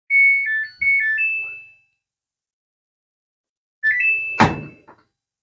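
A top-load washing machine's electronic control panel powering on: a short five-note tune, then about two seconds later a rising three-note chime with a button click as the cycle is started.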